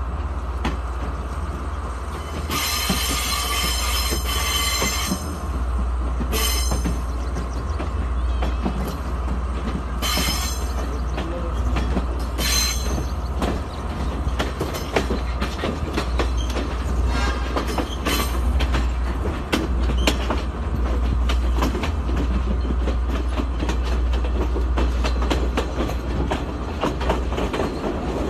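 Passenger train running on the track, heard from an open carriage door: a steady rattle and clatter of wheels over the rails over a low rumble. High-pitched wheel squeals come several times as the train rounds a curve, the longest about two and a half seconds in, lasting some three seconds.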